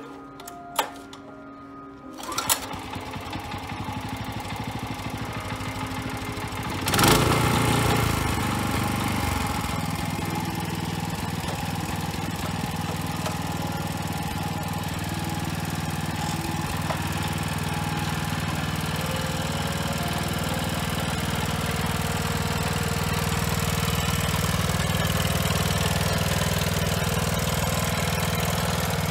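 Robin 6-horsepower engine on an ST41 walk-behind tiller starts about two seconds in, gets sharply louder about seven seconds in, then runs steadily as the tiller drives along.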